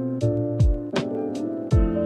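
Background music with a steady beat: deep kick drums that drop in pitch, sharp percussion hits and held chords.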